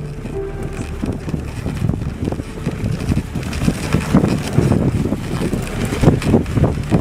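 Wind buffeting the microphone and the rush of a dog sled gliding over snow behind a running team of sled dogs, with irregular low thumps, louder in the second half.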